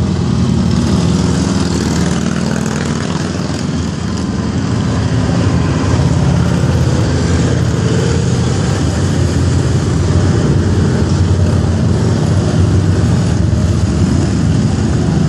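Procession of cruiser motorcycles riding past one after another, their engines running in a loud, steady, overlapping drone, with a motorhome and cars passing among them.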